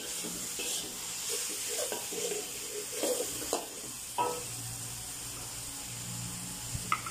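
Metal spatula scraping and stirring sliced onions and tomato through sambal chilli paste in a steel wok, over a steady sizzle of frying. Several scrapes come in the first four seconds or so, then mostly the sizzle.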